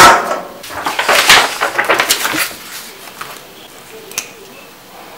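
A metal drink can set down hard on a wooden desk with a single sharp knock. Then comes a busy stretch of rustling and clattering as paper and a pen are handled, followed by a few small clicks.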